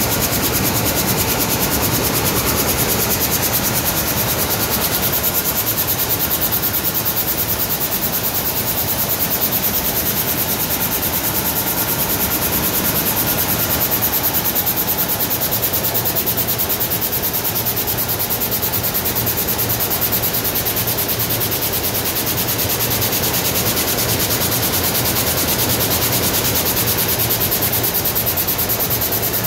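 Picanol OMNIplus air-jet weaving loom with a Stäubli CX1000 jacquard running at production speed: a steady, rapid, even clatter of the beat-up and shedding with a constant hiss of air.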